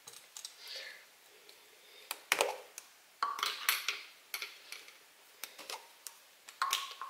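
Plastic popsicle molds handled on a countertop: a string of light clicks and knocks as the cups and holders are taken apart and set down.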